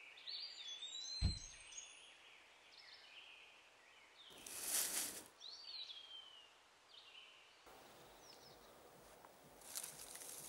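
Woodland birds chirping over quiet forest ambience, with a single dull thump about a second in. Two short bursts of rustling, one around the middle and one near the end, from dry leaves being disturbed.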